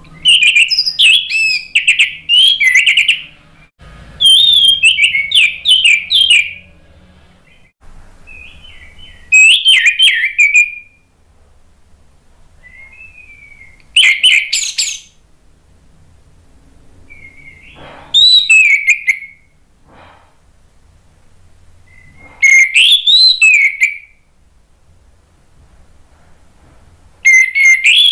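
Orange-headed thrush singing: loud phrases of quick, varied whistled and warbling notes, each a second or two long, repeated about every four seconds with a few soft short notes between them.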